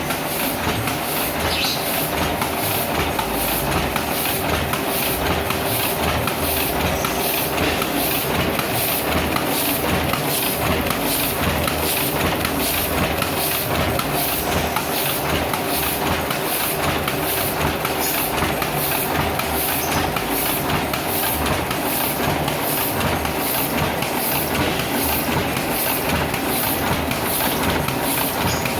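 Heidelberg GTO single-colour offset press running while printing a colour separation: a steady mechanical clatter with a regular beat of about one and a half a second.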